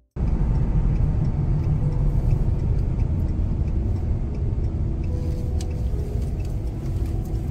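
Steady low rumble of a vehicle driving on a road, starting abruptly, with a faint steady hum above it and a few light clicks near the end.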